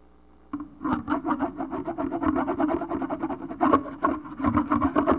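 A pen scratching quickly over paper in rapid writing strokes, several a second, that stops suddenly.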